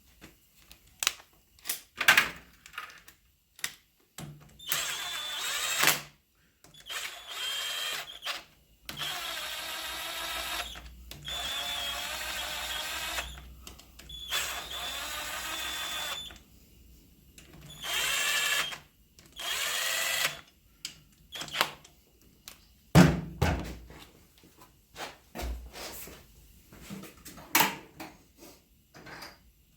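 Power drill run in about seven short bursts of one to two seconds each, its motor speed shifting within each run. Sharp knocks and clanks of tools and parts come in between and near the end.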